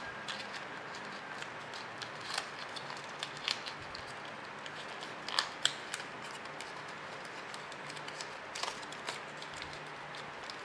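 Origami paper being handled and folded by hand: scattered crisp crackles and rustles as a paper corner is worked into a pocket, with two sharper crackles a little past the middle.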